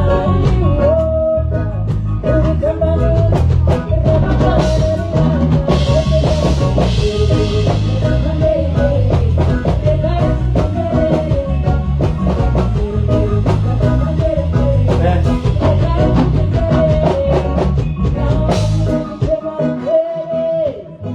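Live amplified band playing during a sound check: drum kit hits over a heavy bass line, with a long cymbal wash partway through. The bass drops out briefly near the end.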